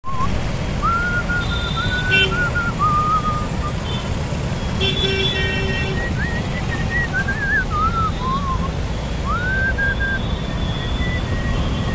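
Road traffic with wind rumbling on the microphone of a moving bicycle. Over it a person whistles a wavering tune, and vehicle horns honk briefly about two seconds in and again for about a second around five seconds in.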